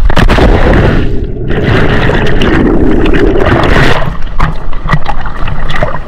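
A person jumping from the top of a waterfall into a fast river: a loud splash and plunge, with the mic briefly going dull about a second in, then churning, rushing river water and knocks on the camera.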